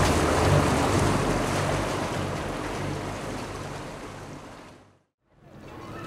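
Water rushing along a sailing catamaran's hull with wind on the microphone as the boat moves through calm water, a low steady hum beneath. It fades away over the last few seconds and goes silent about five seconds in.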